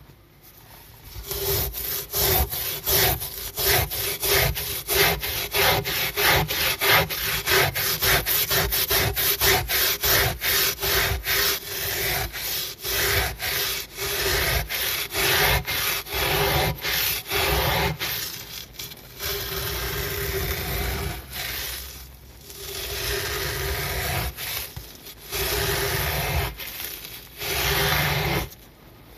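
Miniature brush scrubbing a wet, soapy carpet, its bristles rasping over the pile. Quick back-and-forth strokes run at about two a second; past the middle they change to slower, longer strokes with short pauses between them.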